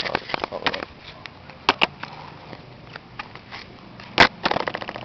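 Knocks, clicks and scrapes of a handheld camera being handled and set down on concrete pavement. The loudest knock comes about four seconds in, followed by a few smaller ones.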